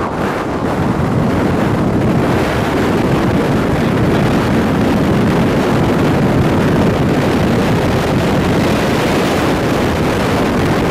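Loud, steady rush of wind buffeting the microphone, building over the first second or two and then holding.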